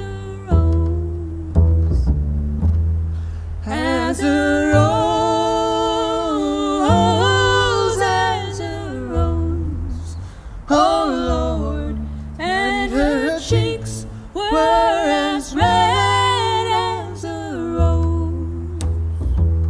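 A woman singing a slow traditional folk song over long, low upright bass notes. A fiddle comes in near the end.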